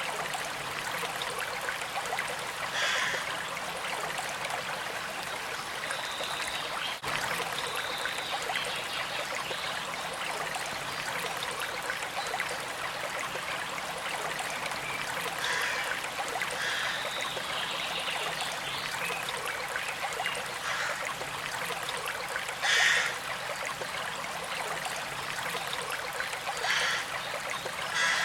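A small stream trickling and flowing steadily, with a few short, brighter sounds standing out now and then, the loudest about three-quarters of the way through.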